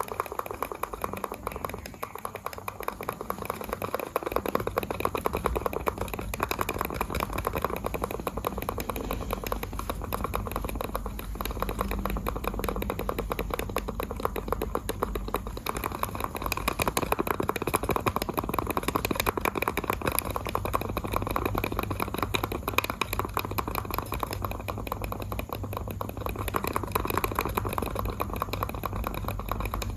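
Computer mouse buttons clicked rapidly and continuously, many clicks a second, with a low hum joining underneath about four seconds in.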